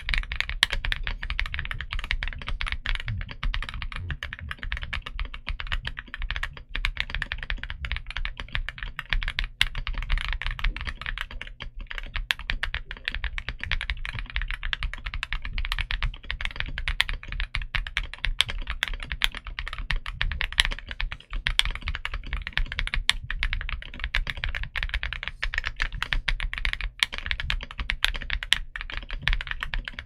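Continuous fast typing on an Akko MOD007V3 mechanical keyboard with an FR4 plate, Akko Creamy Purple Pro linear switches and JDA-profile PBT keycaps: a dense, steady stream of keystroke clacks.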